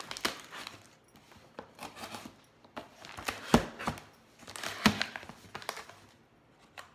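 Cardboard box being worked open by hand: scraping, rustling and tearing at its tape and flaps, with a few sharp snaps, the loudest about three and a half and five seconds in.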